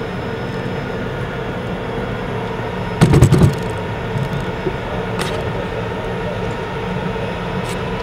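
Tank driving slowly over dirt, its engine running with a steady whine. A brief loud burst of clattering about three seconds in, and a couple of single clanks later.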